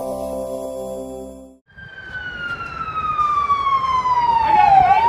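A short musical jingle ends about a second and a half in; then an emergency vehicle siren wails, its pitch falling slowly for about three seconds and starting to rise again near the end, with a brief quicker warble layered over it.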